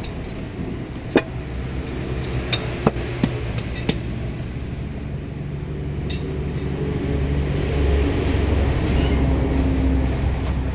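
Mitsubishi PS100 truck diesel engine running steadily during an engine adjustment, its low hum growing louder about seven seconds in. Several sharp metallic clicks sound over it in the first six seconds.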